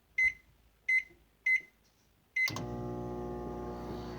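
Microwave oven keypad beeping three times as buttons are pressed, then a click and a beep as it starts, followed by the steady hum of the microwave running.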